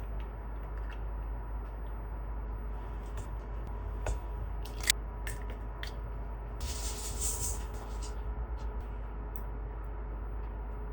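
Small handling sounds over a steady electrical hum: a few sharp clicks and knocks, and a brief rustling hiss about seven seconds in.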